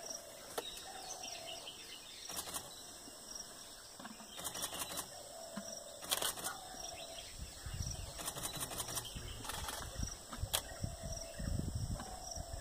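Insects chirring steadily, with scattered sharp snaps and crackles of an Asian elephant tearing at bushes with its trunk. A low, uneven rumbling noise comes in about halfway through.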